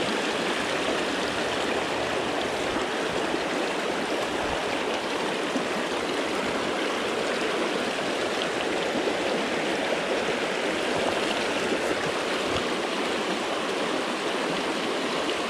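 River water flowing: a steady, even rush that does not let up.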